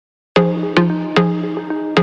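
Background music: the instrumental intro of a pop song, with chords struck in a steady even pulse about two or three times a second. It starts after a brief silence.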